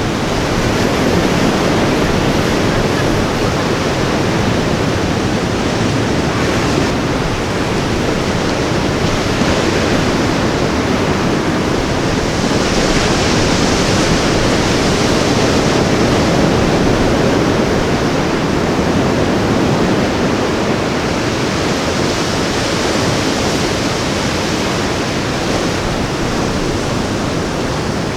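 Ocean surf breaking and washing on a beach: a steady rushing hiss that swells a little about halfway through.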